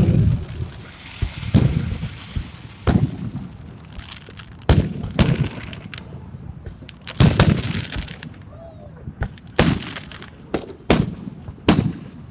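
Aerial firework shells bursting: about a dozen sharp bangs at irregular intervals, each followed by a low rumbling echo.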